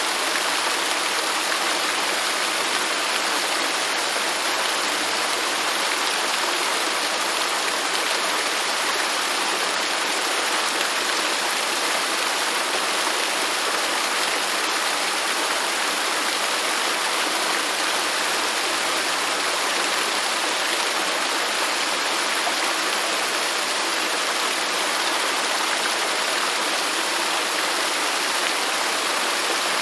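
Garden water fountain running: a steady splashing of falling water, even and unbroken throughout.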